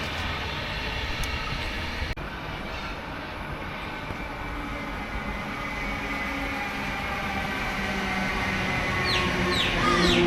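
Electric suburban passenger train running on the line: a steady motor whine over rail noise that grows louder over the last few seconds, with a few short falling squeals near the end.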